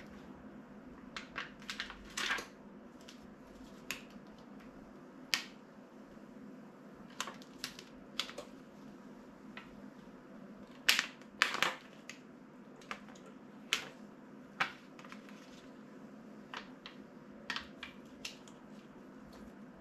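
Heat transfer vinyl and its backing sheet crackling and rustling as they are peeled apart and handled, in short scattered bursts, the loudest a few quick crackles about eleven seconds in. A faint steady hum runs underneath.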